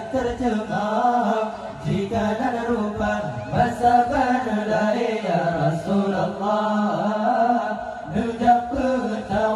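Acehnese dike (dikee): a group of voices chanting a devotional Islamic chant in unison, the melody rising and falling over a steady held low note.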